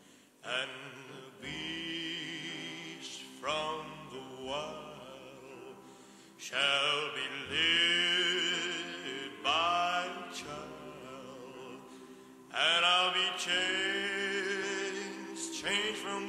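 A slow song: a voice singing long, held notes with vibrato, each phrase starting about every three seconds, over quieter sustained accompaniment.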